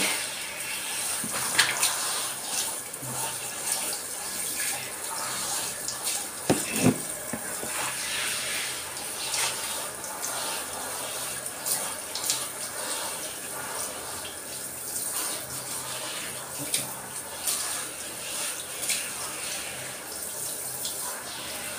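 Handheld shower head spraying water onto a Shetland sheepdog's wet coat: a steady hiss of running water, with a few short sharp sounds now and then.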